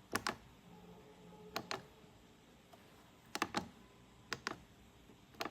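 Buttons on an inverter's LCD keypad being pressed, each press a sharp click, mostly heard as a quick double click, about five presses at uneven intervals.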